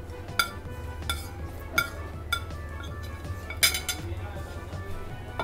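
Metal spoon clinking and scraping against a plate while the last of a curry is scooped up: a string of sharp clinks about half a second to a second apart, the loudest about three and a half seconds in, over background music.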